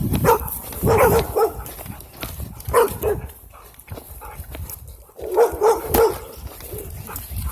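Dog barking in several short volleys of a few barks each, with pauses in between.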